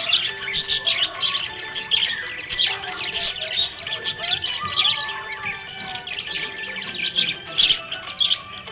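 Budgerigar chirping: a quick, busy stream of short, high chirps and warbles with no pauses.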